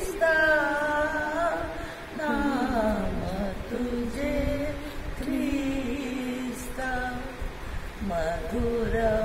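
An elderly woman singing a Marathi hymn into a handheld karaoke microphone, in long, slowly held notes that waver in pitch, with short breaks between phrases.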